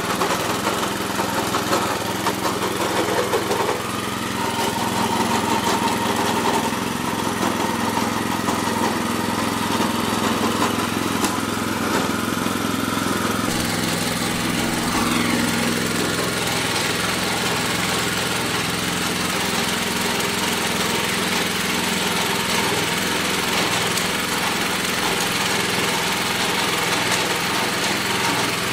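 Small gasoline engine of a rear-tine rototiller running steadily under load as its tines churn the soil, its note shifting slightly about halfway through.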